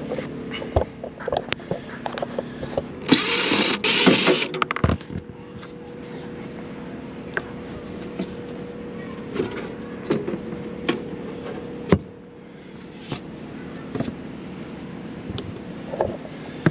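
A cordless driver whirs loudly for a second or two, backing out the sheet-metal screws of a rooftop AC unit's side panel, followed by scattered clicks and knocks as the metal panel and screws are handled. A steady low hum runs underneath.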